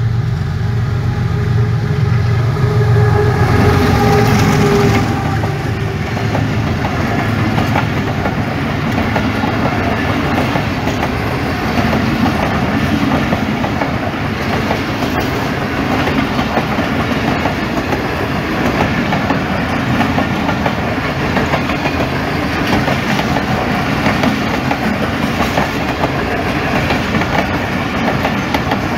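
Diesel locomotive running past with a steady low engine drone, loudest in the first few seconds. Then a long line of passenger coaches rolls by, wheels clattering over the rail joints.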